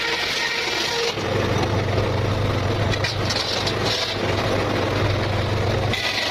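Circular saw cutting through petung bamboo. The saw runs free at first; about a second in the blade bites and the sound turns louder and lower, with a steady deep hum under the cutting noise. Just before the end it returns to free running.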